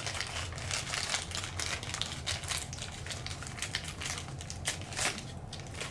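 A toy blind bag's packaging crinkling and crackling in hand, in quick irregular rustles.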